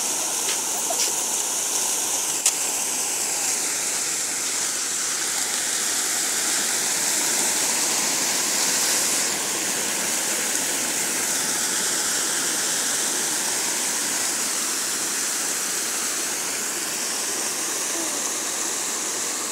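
Ornamental fountain: water pouring in sheets from large funnel-shaped bowls and splashing into the pool below, a steady even rush.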